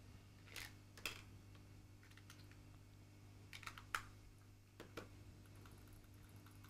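A few faint, scattered plastic clicks and snaps as a Logitech Anywhere MX wireless mouse is handled and its battery cover is pressed back into place.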